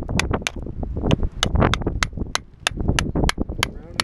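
Hammer blows on a steel chisel driven into beach rock, a steady run of sharp metallic strikes about three a second, chipping the rock away to dig out a fossil.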